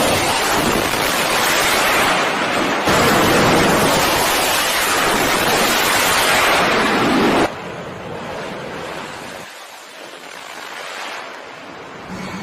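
Loud rushing wind and surf noise with wind buffeting the microphone. The noise jumps abruptly about three seconds in, then drops sharply to a quieter hiss near eight seconds in.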